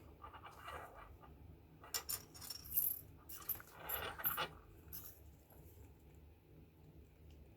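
Small metal parts being handled on a workbench: a few light metallic clinks and scrapes through the middle, the loudest about three seconds in.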